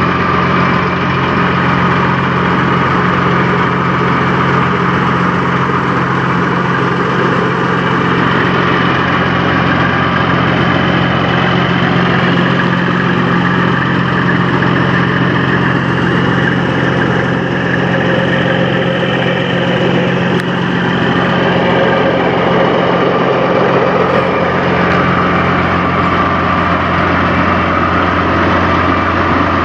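Peterbilt semi truck's diesel engine idling steadily: an even low drone that neither revs up nor dies away.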